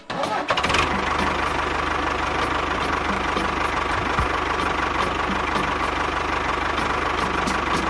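An engine running steadily at an even speed, with a dense clatter; it cuts in abruptly just after the start.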